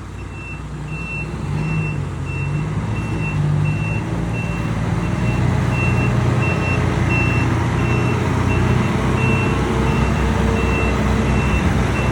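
Volvo FH truck's diesel engine rumbling through its exhaust, growing louder over the first few seconds and then holding steady, with a reversing beeper sounding about twice a second.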